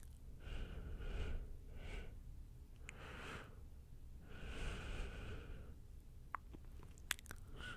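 Soft, breathy up-close whispering in about four slow puffs, with a few faint sharp clicks near the end.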